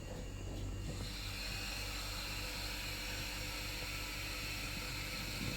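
Lift car travelling between floors: a steady hiss with a low hum and faint high whine, which swells about a second in as the car gets under way.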